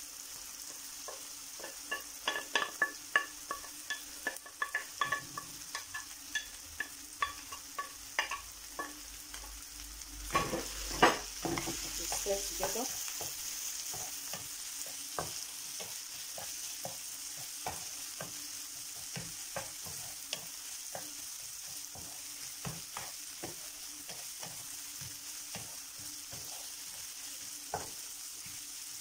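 Wooden spatula scraping deboned mackerel off a plate into a nonstick frying pan, then stirring it through onion and pepper frying in oil. A steady hiss of sizzling runs under many quick taps and scrapes of the spatula, with a louder patch of scraping about ten to thirteen seconds in.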